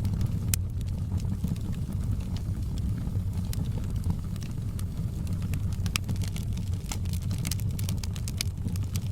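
Wood fire crackling in a fireplace: a steady low rumble of flames under many sharp pops and crackles, coming thicker near the end.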